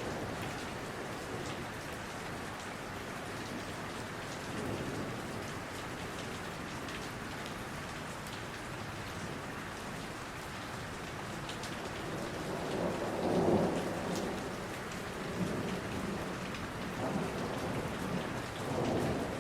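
Steady rain falling on forest foliage, an even hiss of drops. A low rumble of thunder swells and fades about two-thirds of the way through.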